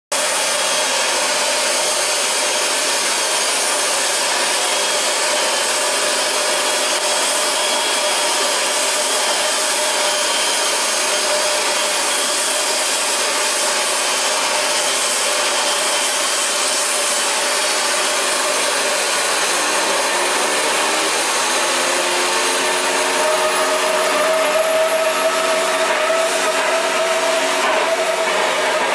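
Homemade propane-fuelled gas-turbine jet engine running: a loud, steady rushing noise with a faint whine. About 20 seconds in, rising tones settle into a steady hum, and from there the sound is a little louder and rougher.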